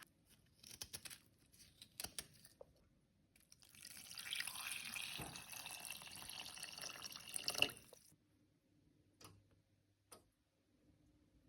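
Water running from a tap for about four seconds, then shut off, after a few light clicks and crackles.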